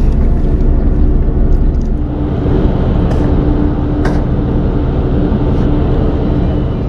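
Small fishing boat's engine running steadily, a low, even drone, with two faint clicks about three and four seconds in.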